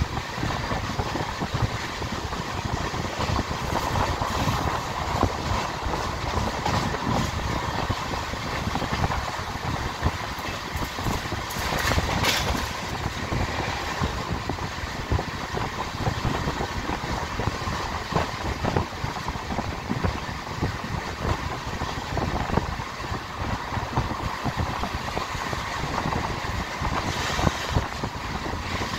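LHB passenger coaches running at speed, heard from inside the coach: a steady rumble and rush of wheels on rail with a continual clatter of knocks from the track. About twelve seconds in there is a brief louder rush.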